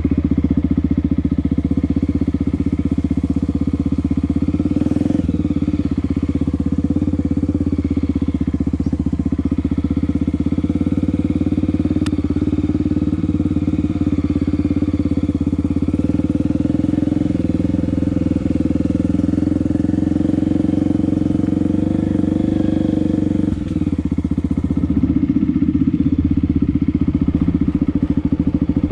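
Honda XR250 Tornado's single-cylinder four-stroke engine running steadily under light throttle while the bike is ridden along a dirt trail. Its note briefly dips and shifts in pitch about three-quarters of the way through, then carries on.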